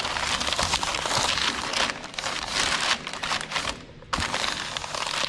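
Masking paper crinkling and rustling as it is pressed and folded by hand against the edge of a panel, easing off briefly about four seconds in.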